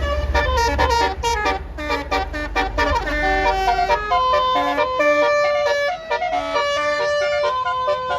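A bus's Basuri telolet multi-tone horn playing a quick tune of short stepped notes, some held longer in the second half. Under it, the low rumble of the bus engine fades out about three seconds in.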